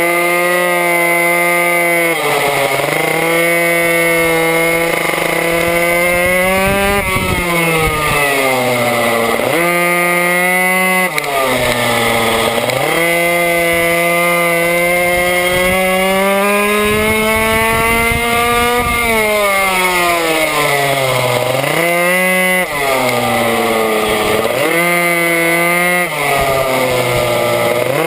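A minimoto's small two-stroke engine racing flat out, heard close up. Its high, buzzing note climbs on each straight and drops away sharply when the rider backs off for the corners, about ten times over, with one long pull in the middle that falls off slowly.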